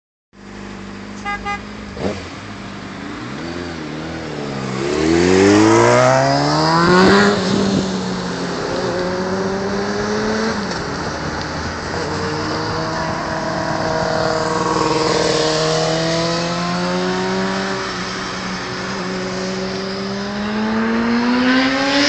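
Engines of traffic heard from inside a car's cabin as a sport motorcycle rides alongside. The engine note climbs steeply in pitch about five seconds in as the vehicles accelerate, then holds a steady drone. There are two short beeps near the start.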